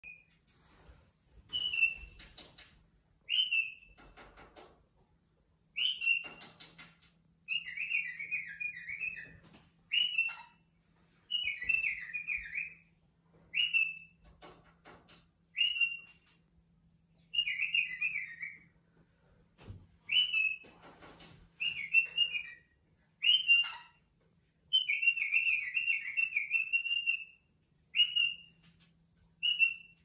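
Cockatiel whistling over and over: short upward-sweeping whistles about every second or two, mixed with several longer warbling phrases, with a few faint knocks between the calls.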